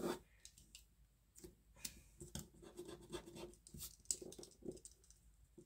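Mechanical pencil scratching on paper in quick, irregular short strokes as lines are sketched.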